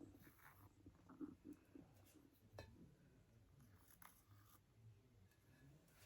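Near silence: room tone with a low hum and a few faint short clicks.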